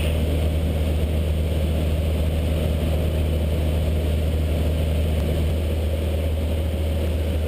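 Cessna 152's four-cylinder Lycoming O-235 engine and propeller droning steadily in flight, heard inside the small cabin.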